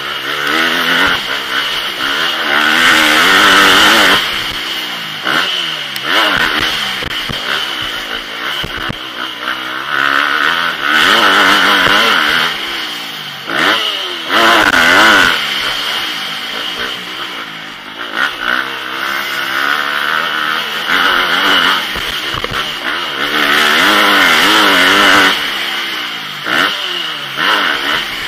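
Motocross bike's engine under hard race riding, its pitch climbing and dropping again and again as the throttle is opened and closed. Heard from a camera on the rider's helmet.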